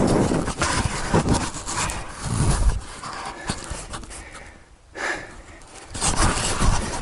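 A man breathing hard and panting in uneven surges while climbing a steep slope on foot.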